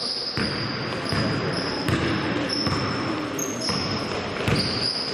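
A basketball bouncing on a court floor during play, in irregular thuds, with high short squeaks from sneakers and players' voices around it.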